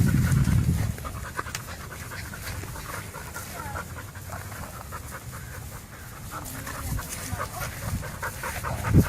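A dog panting in quick, repeated breaths. A louder low sound fills the first second.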